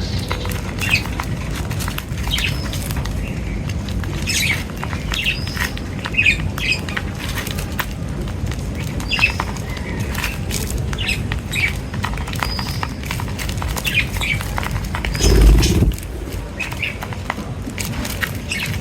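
Small birds chirping in short scattered calls, mixed with many sharp clicks, over a steady low rumble. A brief loud low thump comes about 15 seconds in.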